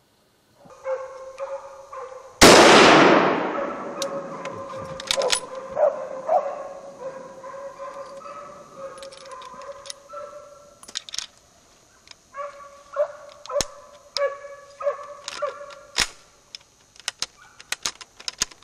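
Hunting dogs barking and baying on and off throughout, with one loud rifle shot about two and a half seconds in that echoes away through the forest.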